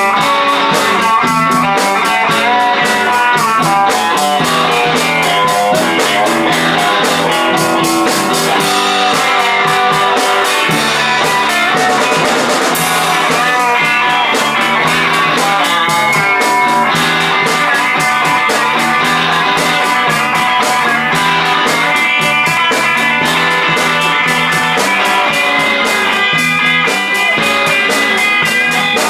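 A rock band playing: electric guitar over a drum kit with a steady beat.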